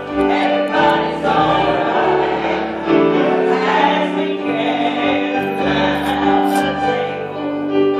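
Women's vocal group singing a gospel song in harmony, several voices holding long notes together.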